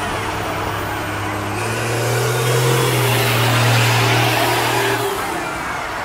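School buses racing past at speed: a steady engine drone under hard throttle that swells with tyre and wind noise as a bus goes by close, then drops away sharply about five seconds in.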